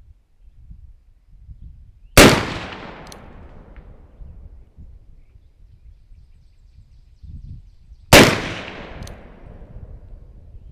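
Two shots from a .36-calibre Pietta 1858 Navy percussion revolver loaded with 20 grains of 3F black powder and a round ball, about six seconds apart, each a sharp crack followed by a long fading echo.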